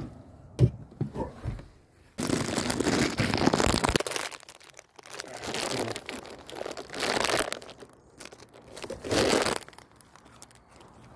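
Three bursts of rough crinkling and rustling: the first about two seconds in and lasting about two seconds, the second a little over two seconds long, and a short last one near the end.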